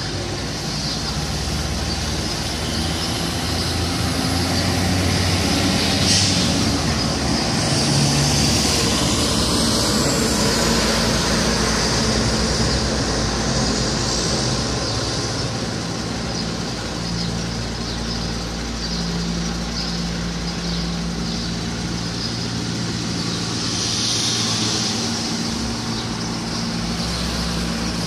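Delivery truck's diesel engine idling steadily, a continuous low drone. A couple of short hisses come about six seconds in and again near the end.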